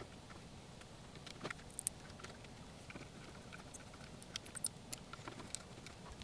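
Faint, scattered clicks and light taps of hard plastic parts being handled: a servo being fitted into a 3D-printed plastic chassis.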